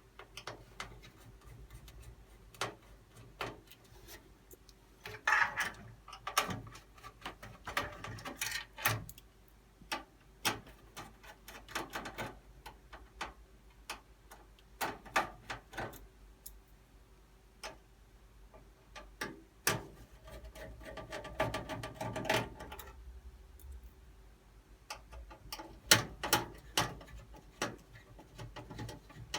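Screws being driven to fasten a motherboard to the risers of a PC case: scattered small clicks and taps of the screwdriver and metal parts, with a few longer stretches of screw-turning noise, one about five seconds in and another lasting a couple of seconds past the middle.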